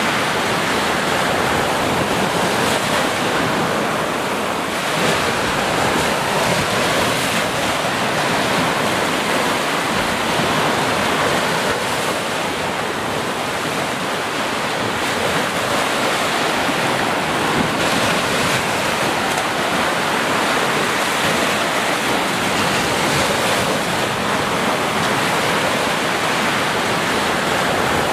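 Ocean surf: small waves breaking and washing up onto a sandy shore, a steady rush of water.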